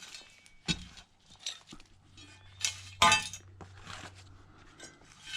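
Broken bottle glass in the soil clinking and scraping against a hand digger, a handful of sharp knocks with the loudest about three seconds in, ringing briefly.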